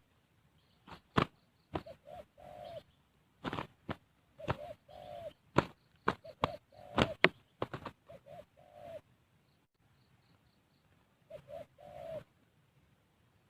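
Spotted dove cooing in short repeated phrases, mixed with sharp slaps of flapping wings. The cooing comes from the decoy dove, since the wild bird it is fighting never calls.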